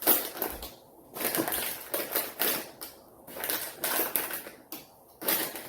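Close-up chewing and mouth noises from a full mouthful of soft fava-bean snack bites: a run of irregular, moist crunching bursts.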